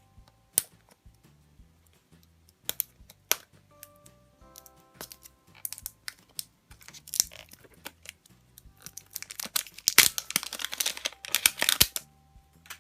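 Plastic wrapper of a Chupa Chups candy egg being handled and torn open: scattered sharp clicks and snaps at first, then a few seconds of dense crinkling and tearing near the end. Soft background music plays underneath.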